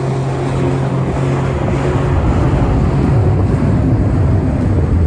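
Jet ski engine running at speed, with wind rushing over the microphone. The engine's steady hum is plain at first, then is buried under louder wind and water noise after a second or two.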